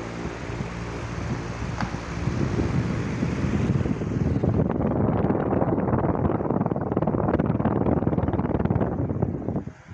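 Venti-Delta Premium 60 cm pedestal fan running, a steady rush of air over a faint motor hum. About two and a half seconds in the airflow begins buffeting the microphone and grows louder and rougher, then the sound cuts off sharply near the end.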